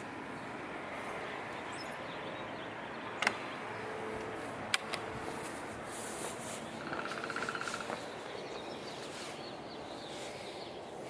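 A 1980s 16-inch Sanyo oscillating table fan running, a steady whoosh of air and motor hum, with two sharp clicks about three and five seconds in and a brief rattle around seven seconds. The owner says its motor needs oiling.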